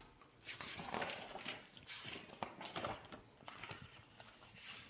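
A run of faint, irregular knocks and taps, several a second, with some a little louder than others.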